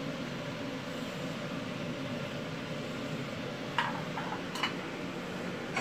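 Steady fan-like hum of a kitchen, with two light knocks about four seconds in.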